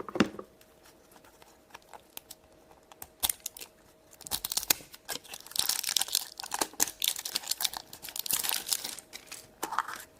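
A plastic blind-bag wrapper being torn open and crinkled in the hands: a few scattered crackles at first, then a long stretch of dense crinkling from about four seconds in.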